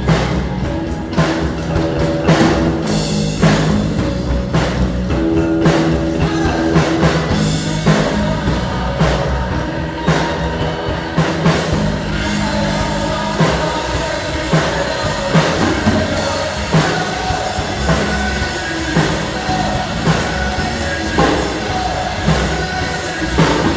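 Loud rock music with a driving drum kit, bass drum and sustained low guitar or bass notes, and possibly vocals.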